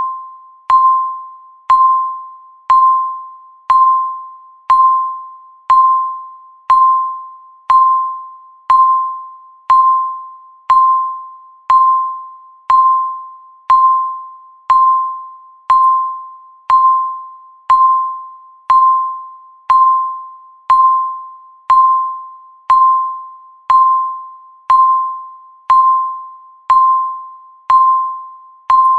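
Countdown timer's electronic beep, one short high-pitched tone every second, each starting sharply and fading away before the next.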